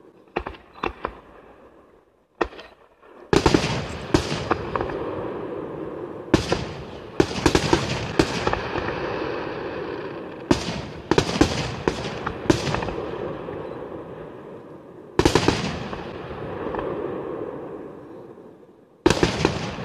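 Aerial firework shells bursting overhead: a few lighter bangs in the first couple of seconds, then loud booms in quick clusters from about three seconds in, with a rolling echo between them. A heavy single burst comes about fifteen seconds in and another near the end.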